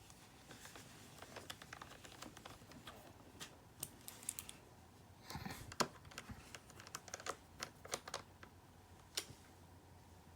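Faint, irregular clicks and taps on a MacBook Pro keyboard, with a short cluster of louder clicks about halfway through.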